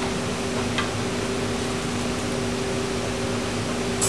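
Steady mechanical hum with a hiss, the running background of a commercial kitchen's equipment, with one faint tick about a second in.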